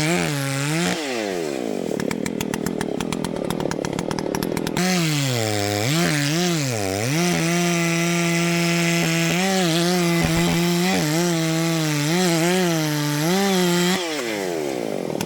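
Two-stroke chainsaw cutting up a downed tree. It revs high, then the revs fall away about a second in. From about five seconds it runs at full throttle in the cut, sagging briefly as the chain bites, and it drops off near the end.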